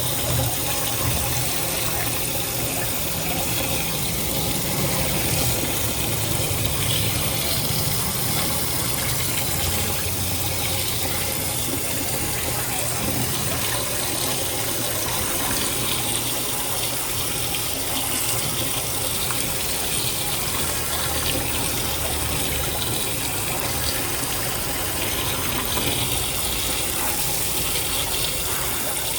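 Water running steadily, washing the dust out of an air-conditioner filter.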